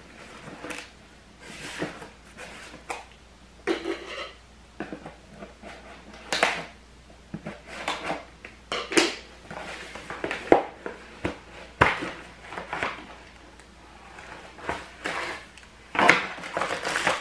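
Cardboard box being cut open and handled: irregular scraping, tearing and rustling of cardboard and packing tape, with sharp clicks and knocks as the flaps are pulled open.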